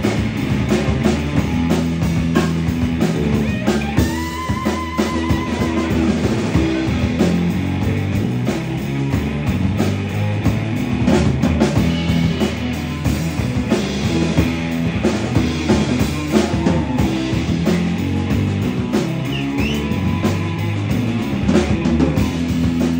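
Live rock band playing an instrumental passage: electric guitar through an amplifier over drums, with a held, wavering guitar note about four seconds in.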